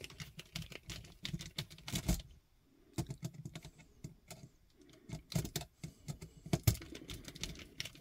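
Klein 15-in-1 screwdriver turning the traveler terminal screw of a three-way light switch, clamping the wire under it: a run of small irregular clicks and taps of metal on metal and plastic, with a short pause about two and a half seconds in.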